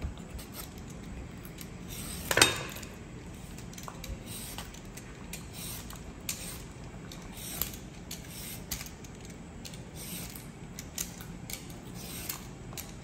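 Hand-held vegetable peeler scraping strips off a raw carrot in repeated short strokes, with one louder sharp knock about two and a half seconds in.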